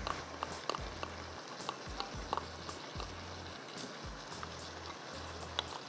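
Chickpea masala simmering and sizzling in a frying pan: a steady faint hiss with scattered light clicks and scrapes of a spatula stirring.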